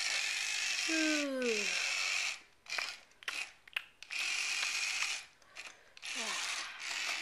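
Battery-powered toy dump truck's small motor and plastic gearbox whirring as it drives along a toy track ramp, cutting out for about a second and a half in the middle with a few clicks, then running again. A falling tone sounds about a second in, and a shorter one a little before the end.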